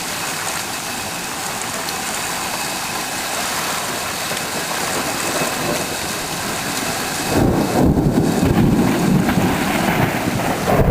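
Steady rain hissing, then about seven seconds in a loud, low rumble of thunder breaks in and rolls on, easing briefly and swelling again near the end.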